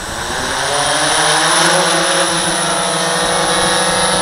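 DJI S1000 octocopter's eight motors and propellers spinning up for takeoff, a whine rising in pitch and loudness over about the first second and a half, then a steady hum as it lifts off and hovers.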